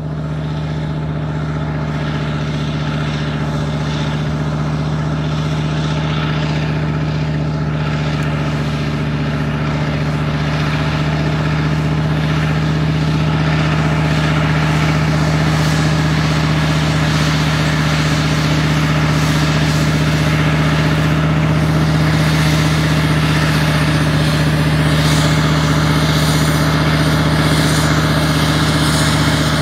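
The 612 hp V10 biturbo Mercedes diesel engine of an ACO 460 articulated tractor running steadily under load while towing an implement. It is a low, constant-pitch drone with no revving, and it grows gradually louder as the tractor approaches.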